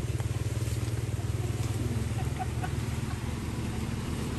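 Small engine running steadily with a fast, even putter.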